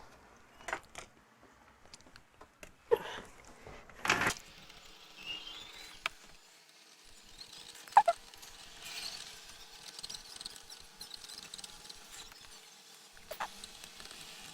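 Scattered light clicks, taps and faint scratching of small tools working on a circuit board, as old solder flux is cleaned off around the power button.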